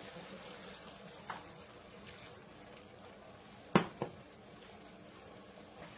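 Faint, steady bubbling of a pot of vegetables simmering in water. About four seconds in, two sharp knocks follow each other closely, hard objects striking the pot or the counter.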